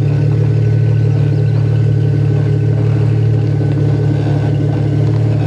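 Off-road vehicle engine running steadily at low revs, a loud, even hum with no change in pitch.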